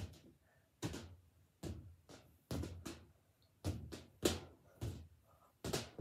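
A string of irregular thumps and knocks, about one or two a second, from a boy stepping and jumping about a room while tapping a balloon to keep it in the air.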